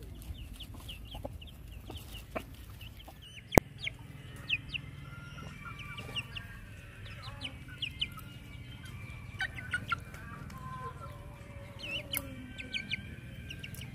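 Chickens clucking, with many short high chirps throughout and scattered clicks; a single sharp click about three and a half seconds in is the loudest sound.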